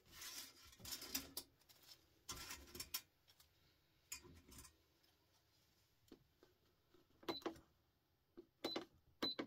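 Faint rustling and scattered clicks of scrap transformer parts and copper winding wire being handled, with a few sharp metallic clinks near the end.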